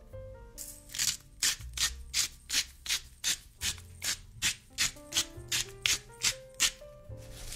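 A vegetable being shredded in a steady run of short rasping strokes, about three a second, over soft background music.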